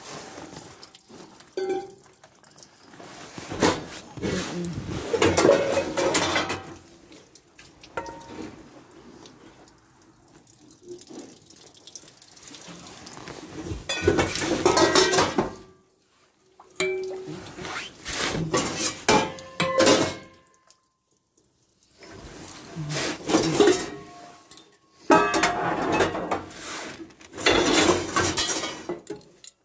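Discarded metal pots, pans and kettles clattering and scraping against one another as they are rummaged through and lifted out of a heap, in several bursts with short pauses between, some knocks ringing briefly.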